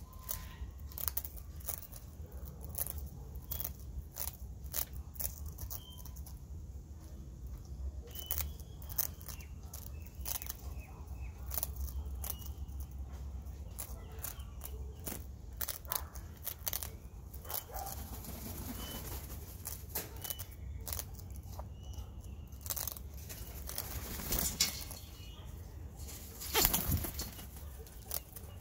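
Sulphur-crested cockatoo biting and crunching a biscuit held in its foot: many small sharp crunches and clicks of the beak on the biscuit. A louder rustle comes a few seconds before the end.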